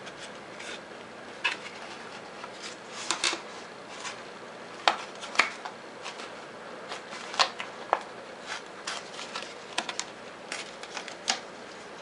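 Clear plastic clamshell packaging of a desktop RAM stick being opened and handled by hand: irregular crackles and sharp clicks of the plastic.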